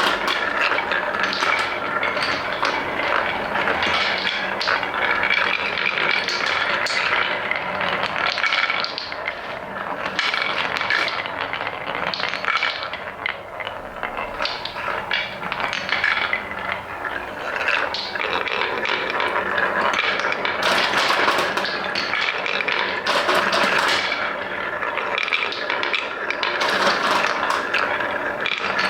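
Many wooden balls rolling and clattering down a wooden marble run, a continuous dense rattle of small knocks and clicks that thins out briefly about a third of the way through.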